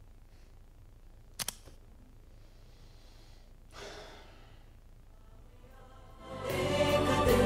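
Two quick clicks, then a man's long sigh as he lets his head fall back. Music with choral singing fades in near the end.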